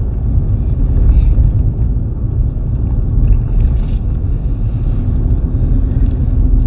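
Steady low rumble of a vehicle driving slowly, engine and road noise heard from inside the cab.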